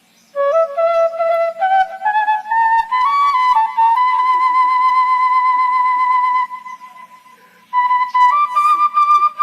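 Background music of a solo flute playing a slow melody, rising in steps, holding one long note and fading out, then picking up again about eight seconds in.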